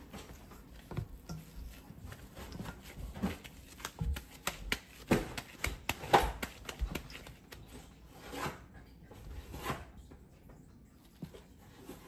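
Gloved hands kneading and rolling raw seasoned ground beef into a ball in a stainless steel bowl: irregular squishes and pats, busiest in the middle and thinning out toward the end.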